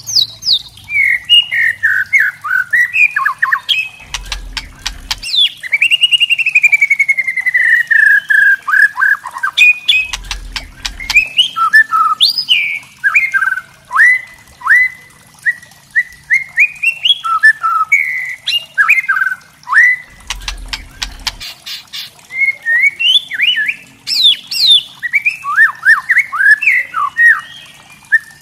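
White-rumped shama singing a busy, varied song of short whistled phrases mixed with rapid dry clicking and rattling notes (kretekan). About six seconds in, it gives one long trill that falls in pitch.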